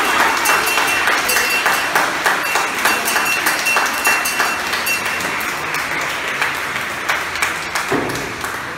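Crowd applauding in a reverberant church hall, with a steady high ringing tone over the clapping that fades out a little past halfway.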